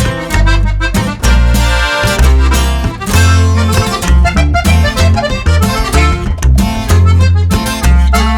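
Background music: an upbeat instrumental track with a steady bass beat, accordion-like melody and plucked guitar.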